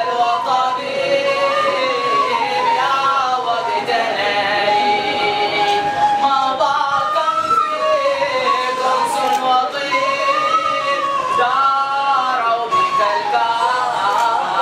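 Men chanting a religious song (inshad) with a wooden flute, the melody rising and falling in long held phrases.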